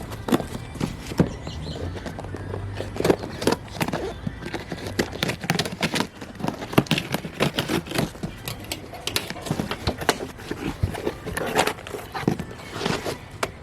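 A cardboard shipping package being opened by hand: a long, irregular run of crackling, tearing and rustling of cardboard, tape and packing.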